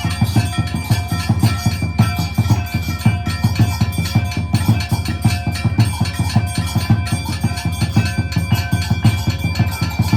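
Music of fast, steady drumming, several strokes a second, with high ringing tones held over it.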